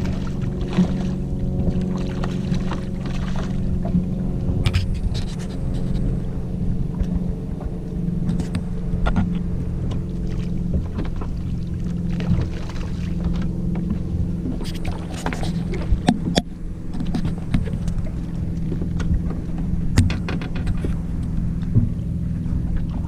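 Boat motor running with a steady hum, while a hooked bass splashes at the surface. Sharp knocks and splashes come now and then as the fish is fought and landed at the boat's bow.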